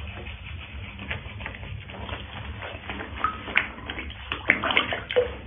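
Water sloshing and splashing in a small tub as hands rub a wet cat, with short sharp splashes growing busier in the second half.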